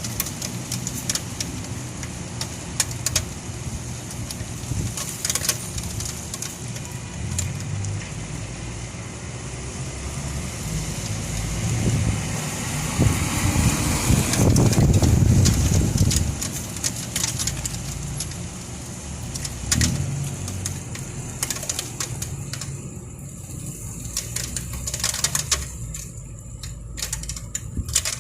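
Storm noise of wind and rain, with many scattered drops and knocks. A louder low rumbling swell comes about twelve to sixteen seconds in, and the sound eases off near the end.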